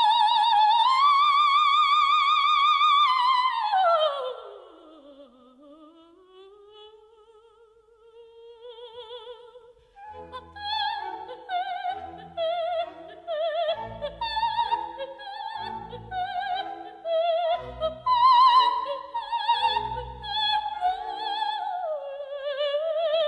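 Coloratura soprano singing opera with orchestra: a high note held with a wide trill, then a long downward glide into a quiet low passage, and from about halfway a run of quick florid notes over the accompaniment. The voice is among those judged extremely constricted in the high-note style.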